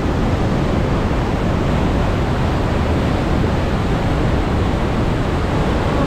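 Water of Niagara Falls crashing down close by: a loud, steady rush with no breaks.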